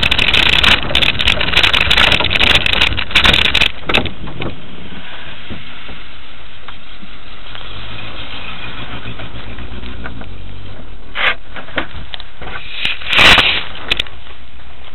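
Wind buffeting and crackling on the microphone of a Quest velomobile moving through snow, loud and dense with many sharp clicks for about four seconds, then dropping to a steadier, quieter background as the velomobile comes to a stop. Near the end come a couple of brief rustling knocks.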